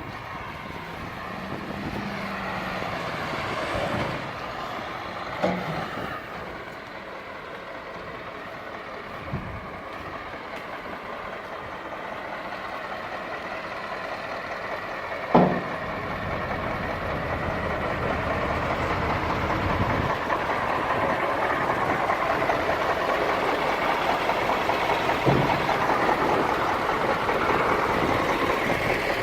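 Heavy truck or earth-moving machinery working: engine noise growing slowly louder, with a few sharp knocks and one loud clank about halfway through.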